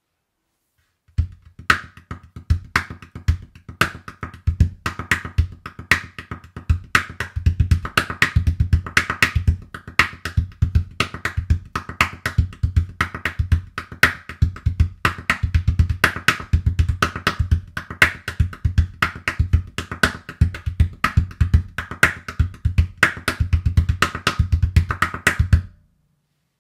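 Calabash, a large dried gourd, drummed with the bare hands in a fast, busy rhythm mixing deep bass booms with sharp slaps and taps. It starts about a second in and stops abruptly just before the end.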